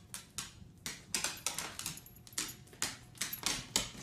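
A small dog's claws clicking and tapping irregularly on a hardwood floor, a few sharp clicks a second, as it hops and turns on its hind legs.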